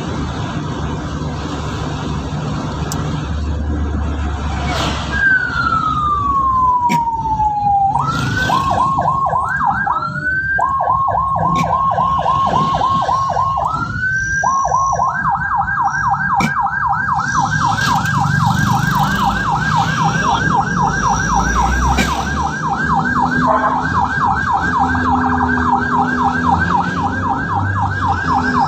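Ambulance siren coming on over road and engine noise. A single falling sweep comes about five seconds in, then a fast warbling yelp that switches pattern a few times before settling into a steady rapid yelp.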